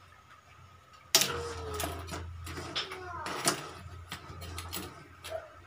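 A metal spatula knocking and scraping in a wok as crabs cooking in broth are stirred, starting suddenly about a second in. A child's voice can be heard in the background.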